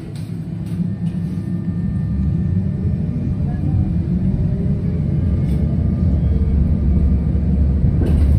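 Cabin sound of a ČKD KT8D5R.N2P articulated tram gathering speed: a low rolling rumble that grows steadily louder, with a faint whine from the traction drive gliding up in pitch as it accelerates.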